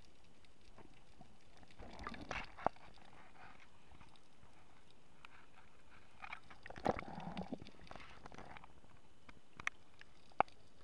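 Muffled water sounds through an underwater camera housing: soft swishes about two seconds in, a longer splashing swirl in the middle as the camera breaks the surface, and a few sharp clicks near the end.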